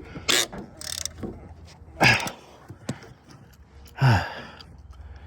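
A man's hard, effortful breaths and gasps, about four of them, the last a falling groan about four seconds in, as he strains at a rusted bolt to break it loose.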